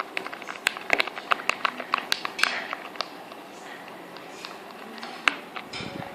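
Homemade slime being worked with a stirrer in a plastic container: a quick run of sharp clicks and taps for a couple of seconds, then a few scattered ones.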